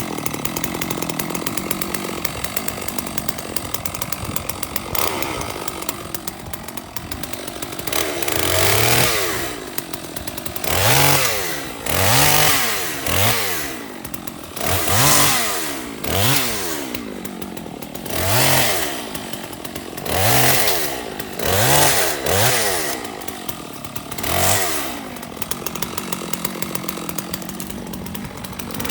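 Stihl MS660 chainsaw's two-stroke engine running at idle, then revved up and let fall back about ten times, every second and a half or so, before settling back to idle near the end.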